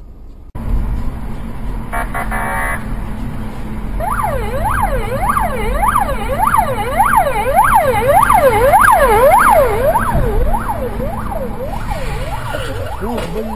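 Police car siren in fast yelp mode, sweeping up and down about twice a second. It starts about four seconds in, over the engine and road rumble of the car carrying the dashcam. A short pulsing tone sounds about two seconds in.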